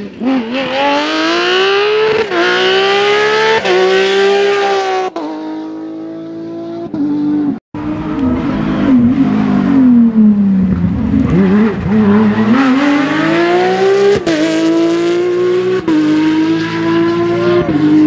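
Porsche 997 GT3 rally car's flat-six revving hard up through the gears, the pitch climbing and dropping back at each upshift about every second and a half. After a brief break, another car's engine falls in pitch through downshifts, then climbs through the gears again with two more upshifts.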